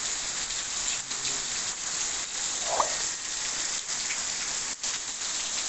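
Very heavy rain pouring steadily onto a grassy, waterlogged yard. A single short, rising chirp about halfway through.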